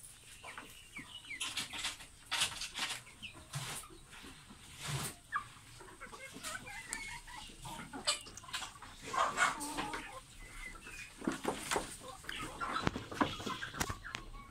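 A flock of chickens clucking and chirping in short, scattered calls, with many sharp little clicks among them.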